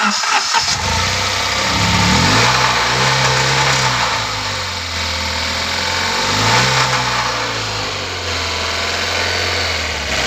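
Tata Nano's two-cylinder petrol engine running and being revved twice, pitch rising, holding for a couple of seconds, then dropping back to idle, with some sharp irregular pops in the first second. The car is reported to misfire, respond poorly to the accelerator and pop when throttle is given.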